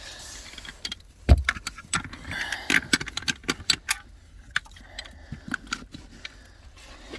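BMW X5 rear seatbelt buckle being tested: the metal latch plate is clicked in and released several times with irregular metallic clicks and clinks, and there is one heavy thump about a second in.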